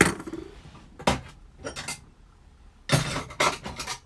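Metal clicks and clinks from a mortice lock and small hand tools being handled, in several short bursts, the busiest clatter a little under a second long near the end.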